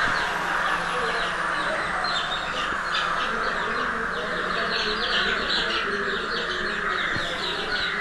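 Young chickens peeping rapidly and continuously in high chirps, over a steady hiss.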